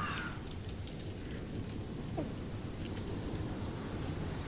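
A few faint clicks of knives working against mussel shells, over a steady low background noise.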